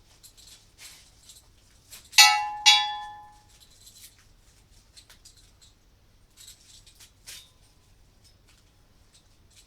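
Steel axle stands being handled: two loud metal clanks about half a second apart, each ringing on briefly, among quieter rattles and clicks of the parts being moved.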